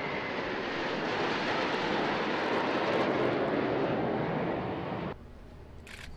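Military aircraft flying past: a loud rush of engine noise, with a high whine that slides down in pitch at first. It cuts off suddenly about five seconds in, leaving a couple of faint clicks near the end.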